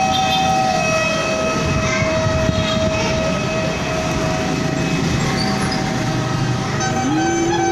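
A siren sounding in the street, a sustained wail that falls in pitch and later rises again, over steady traffic noise.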